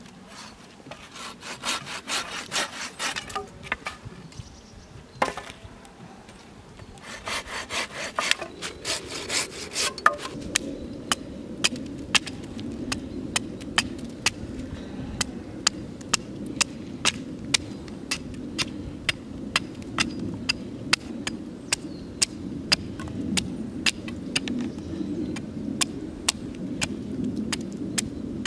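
Hand saw cutting through a branch in two bouts of quick back-and-forth strokes. Then a hatchet chops at a wooden stake with light, regular strikes, about two a second.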